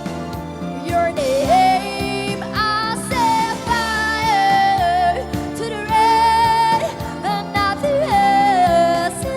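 A female voice singing a song with long held and sliding notes over instrumental accompaniment.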